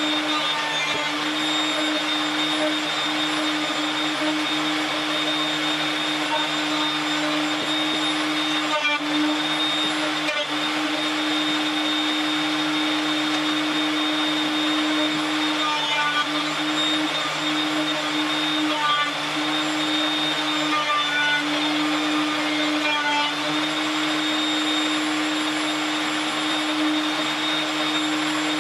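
A workshop machine's electric motor running steadily, a loud vacuum-like rushing with a steady hum, dipping briefly a few times.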